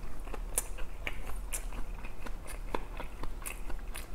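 A person chewing a bite of a large steamed dumpling (wang mandu), with wet mouth clicks and smacks coming irregularly, a few a second.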